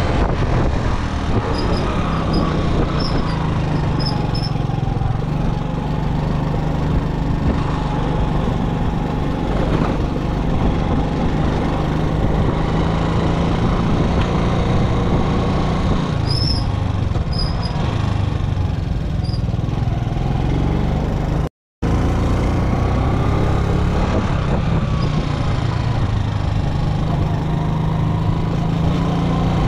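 A vehicle's engine running steadily under a heavy rumble of road and wind noise, as heard from a moving vehicle. A few faint high chirps or squeaks come and go, and the sound drops out for an instant about two-thirds of the way through.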